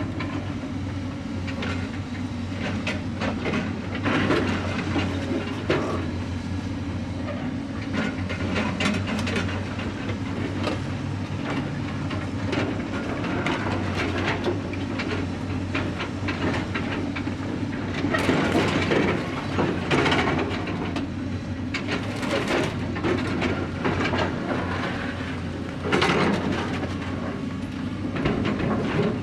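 Construction site ambience: machinery running steadily with frequent metallic clanks and knocks, and louder stretches of noise about two-thirds of the way through and again near the end.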